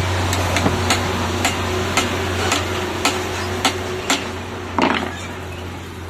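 Light, sharp taps, about two a second, of a sharp screwdriver being knocked against the base coupling of a stuck stainless-steel mixer-grinder jar to turn it loose. About five seconds in there is a longer, louder scraping knock as the jar starts to come free.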